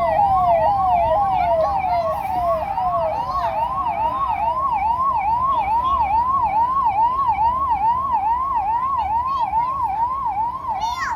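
Vehicle siren on a fast yelp, about three rising-and-falling sweeps a second. A second siren overlaps it for the first three seconds or so, sliding lower in pitch as it fades.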